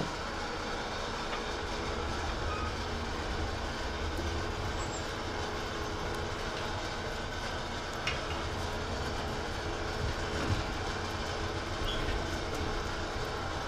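Wood fire burning in the open firebox of a cast-iron wood-burning stove: a steady rushing sound with a few faint crackles.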